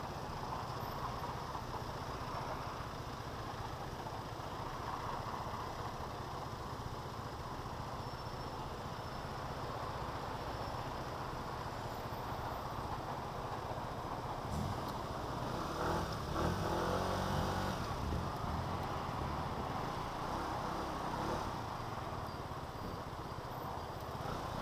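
SYM scooter's engine running at low speed in slow traffic, with steady engine and road noise. From about 15 to 18 seconds in, a louder stretch of engine sound with a changing pitch stands out, then it settles back.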